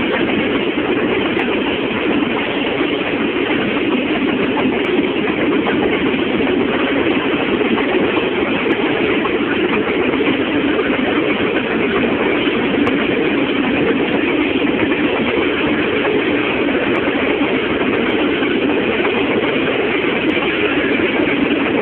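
Freight train wagons rolling past: a steady, loud rumble and rattle of wheels on the rails.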